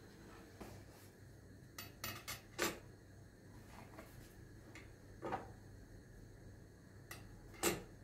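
About seven soft clicks and taps from small objects handled on a table, spaced irregularly over a quiet room background; the loudest comes near the end.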